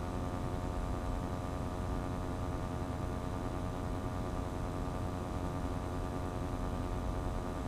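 Steady street noise: the even hum of an idling vehicle engine over a constant hiss.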